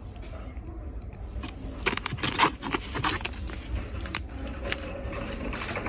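Crinkly food packets rustling and crackling as they are handled, in bunches of sharp crackles about two seconds in and again about four seconds in, over a low steady hum.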